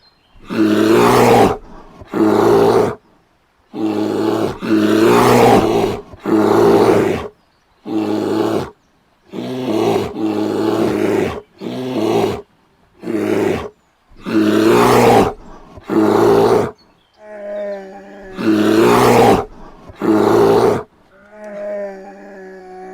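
A bear roaring over and over, about a dozen short, loud roars in quick succession with brief pauses between them. Near the end come two quieter, longer calls with a clearer pitch.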